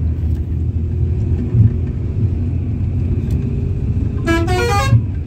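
Steady low engine and road rumble heard from inside a moving bus. Near the end, a short horn toot rises in pitch.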